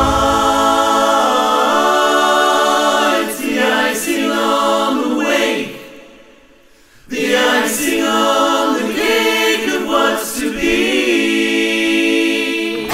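A choir singing held chords a cappella, without bass or drums, breaking off briefly a little past the middle before coming back in.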